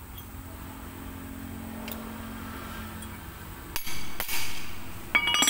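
Hammer striking a metal pin on a car's drum brake shoe: three blows in the second half, the last one ringing.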